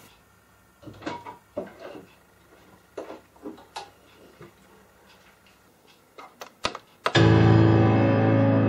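Scattered clicks and knocks of a person moving about and flipping a light switch, then about seven seconds in loud music starts suddenly from a compact stereo system, with sustained chords.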